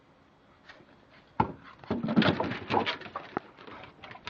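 A sharp knock, then a busy cluster of woody knocks, thumps and scuffing a second later, ending in one last sharp click.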